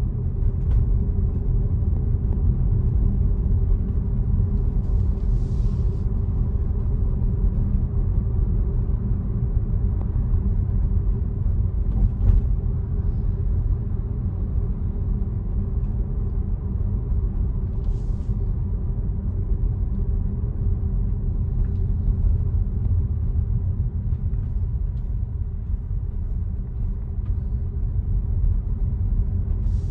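Steady low road and tyre rumble of a Tesla electric car driving on a rain-wet road, with a few brief hisses.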